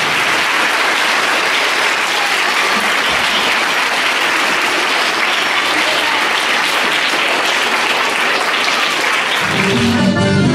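A large audience of schoolchildren applauding steadily. Near the end the clapping gives way to music starting up.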